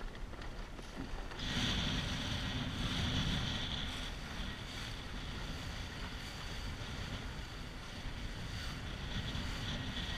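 Wind buffeting the microphone and water rushing and hissing along the hull of a Mirror dinghy sailing fast in a fresh breeze; it gets louder about a second and a half in and then stays steady.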